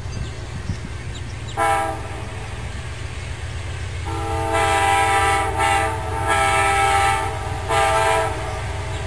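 Locomotive horn of an approaching train sounding several chord blasts: a short one about a second and a half in, a long one from about four seconds in that swells and dips, and another short blast near the end. A steady low rumble runs underneath.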